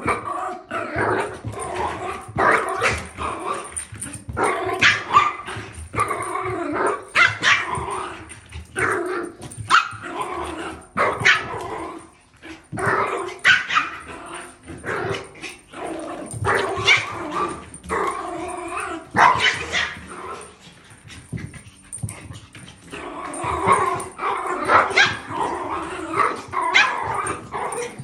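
Small dogs, a toy poodle among them, barking and yipping in quick runs while they play-fight, with short lulls about twelve seconds in and again about twenty-one seconds in.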